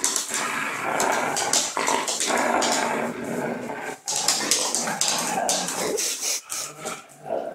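Greyhound-type dogs growling playfully while tugging at a rope toy. The rough growling runs almost without a break, easing off near the end.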